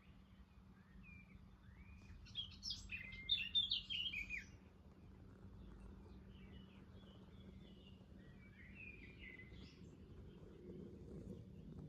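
Small birds singing: a loud run of quick chirping phrases about two seconds in, then a fainter phrase later, over a faint steady outdoor background.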